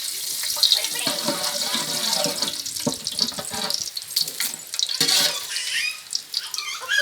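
Steady sizzling hiss of spices and food frying in hot oil in a cooking pot.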